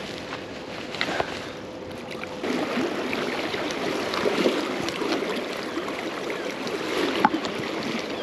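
River water running and splashing over a shallow run, getting louder about two and a half seconds in, with a few light clicks.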